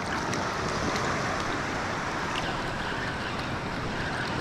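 Steady wash of shallow surf lapping on a sand beach, with wind rumbling on the microphone.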